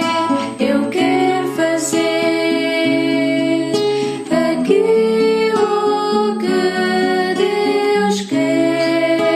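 Background music: held chords that change every second or so, with a short plucked or strummed attack at several of the changes.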